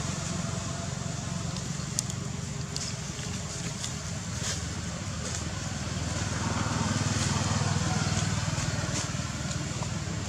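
Steady low rumble of motor traffic, swelling a little after about six seconds, with faint voices and a few light ticks.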